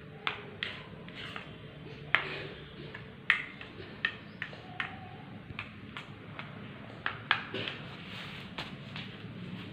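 A string of sharp, irregularly spaced clicks and taps, the loudest about two seconds in, a little past three seconds, and around seven seconds, over a faint low steady hum.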